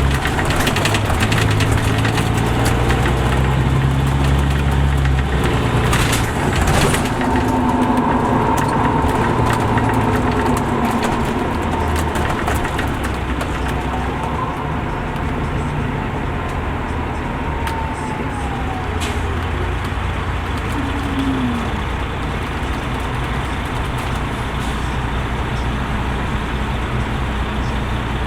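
An MCI D4500CL coach's Caterpillar C13 engine and Allison transmission running, with a steady low engine hum for about five seconds. A short noise comes about six seconds in, and then a whine rises and falls as the bus pulls away and drives on.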